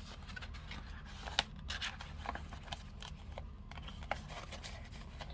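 Quiet handling of paper cash and budget-binder envelopes: scattered light rustles and small clicks, with a steady low hum underneath.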